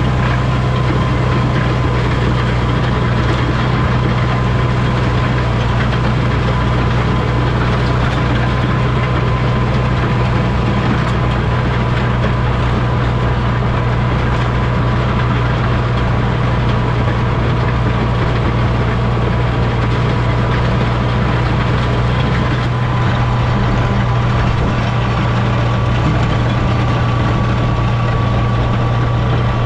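International Harvester 460 tractor engine running at a steady speed, with a thin steady whine riding over the engine note.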